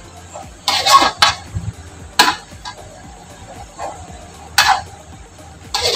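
Metal spatula scraping and knocking against a metal wok as wet shredded chicken is stirred, in about five short, irregular clatters. The loudest come about a second in and just after two seconds.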